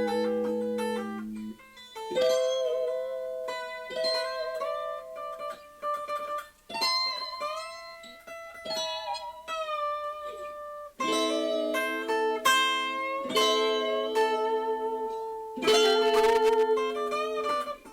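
Solo guitar playing a Spanish-style blues in A minor: plucked melody notes and ringing chords in short phrases, with brief breaks between them.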